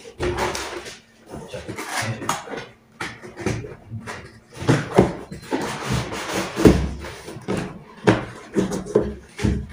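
Cardboard box and molded pulp packing being pulled up and off a desktop PC tower: irregular scraping, rustling and knocks of cardboard against cardboard.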